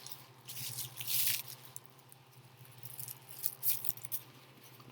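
Packaging rustling and crinkling as an item is pulled out of its box, in two bouts, over a steady low electrical hum.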